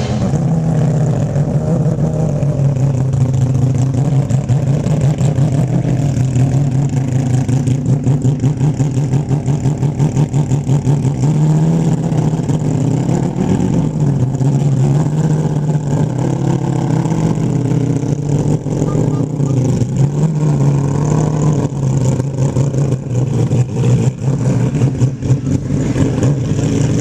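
Race car engine running at low, fairly steady revs with a pulsing beat, its pitch lifting slightly a few times.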